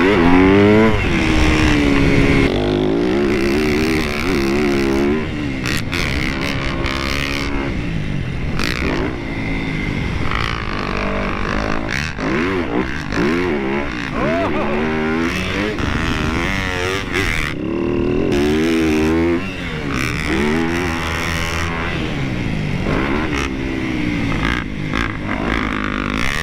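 Motocross dirt bike engine at full riding pace, revving up and falling off over and over as the rider throttles, shifts and lets off through jumps and turns, with the rush of wind over the helmet microphone.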